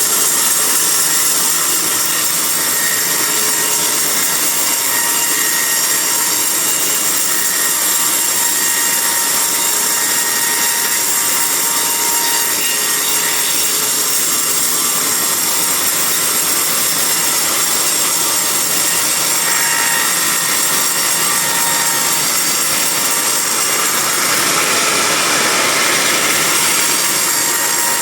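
Band sawmill blade cutting lengthwise through a teak log, a loud, steady sawing noise that does not let up.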